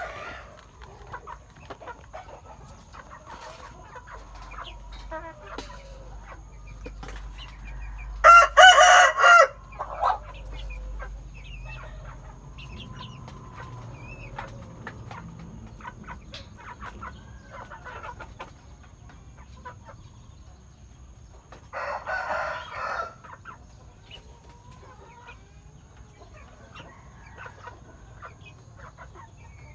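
Chickens clucking softly, with a rooster crowing loudly about eight seconds in and again, more briefly, around twenty-two seconds.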